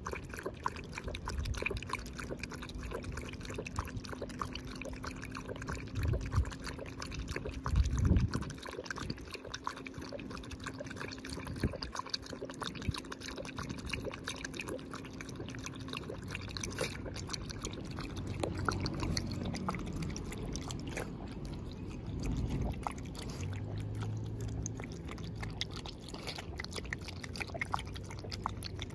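A Shiba Inu lapping water from a stainless steel bowl: a long run of quick, wet laps against the water and the metal. A couple of low thumps about six and eight seconds in are the loudest sounds.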